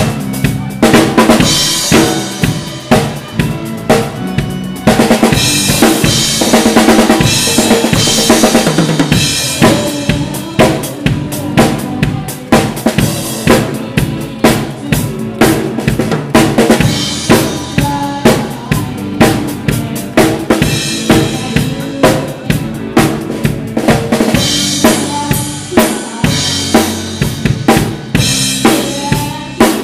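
Rock drum kit played live, close up from behind the kit: a steady kick and snare beat with cymbal wash in several passages, over the band's electric guitars and bass.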